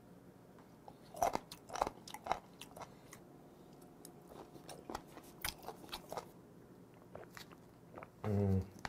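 Close-miked eating sounds: chewing sliced raw seafood with wet smacks and sharp crunchy clicks, irregular and spaced out. Near the end comes a short voiced hum.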